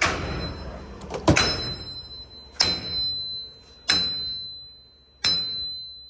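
Hammer blows on the end of a hub removal tool bolted to a wheel hub: five hard strikes about a second and a quarter apart, each leaving a high metallic ring. The hub bearing is seized in the knuckle and is not yet breaking loose.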